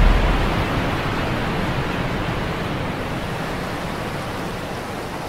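A waterfall rushing: an even, hissing noise with no engine or propeller tone in it, fading gradually away.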